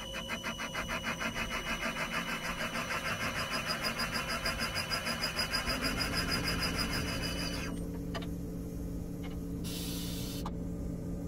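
Valve seat cutter on a seat-and-guide machine cutting a valve seat in a cast-iron John Deere 6068 cylinder head, with a rhythmic chatter about five times a second over a low motor hum. The chatter stops about three quarters of the way through, and a couple of clicks and a brief hiss follow near the end.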